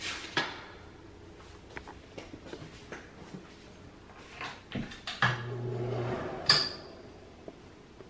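Scattered footsteps and small knocks and clicks from someone walking into a small bathroom, with a brief low steady hum about five seconds in and a sharp click about a second later.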